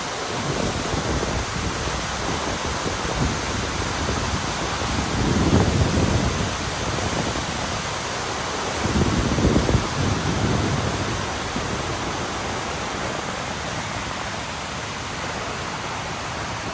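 Steady rushing of a tall waterfall in heavy flow. Two low gusts of wind buffet the microphone, about five seconds in and again about nine seconds in.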